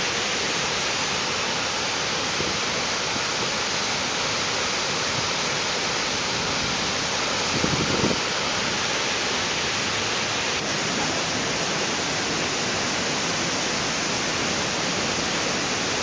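Cheonjiyeon Falls plunging into its pool: a loud, steady rush of falling water. A brief low rumble sounds about eight seconds in.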